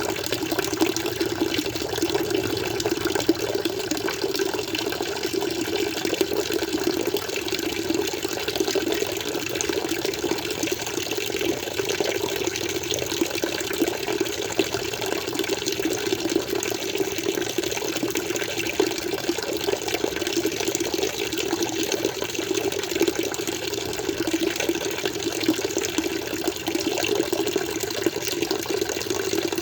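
Water flowing steadily in an aquarium, an even, unbroken rush.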